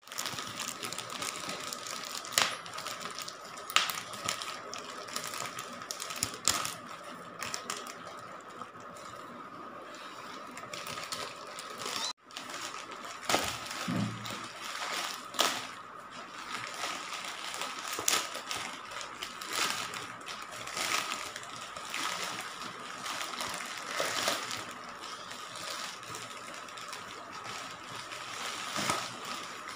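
Plastic courier mailer bag crinkling and rustling under hands, with sharp crackles now and then as it is handled and pulled open.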